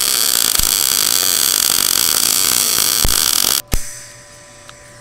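MIG welder arc crackling steadily as a weld is run overhead on the car's sheet-metal subframe mount, cutting off abruptly about three and a half seconds in, followed by a single click.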